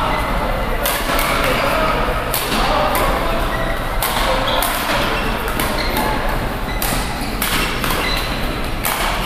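Badminton rackets striking a shuttlecock during a doubles rally: about seven sharp hits at irregular intervals, echoing in a large indoor hall, with faint voices behind.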